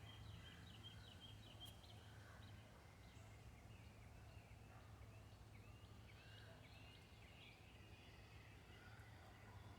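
Near silence with faint, distant bird chirps in quick series, over a low steady hum.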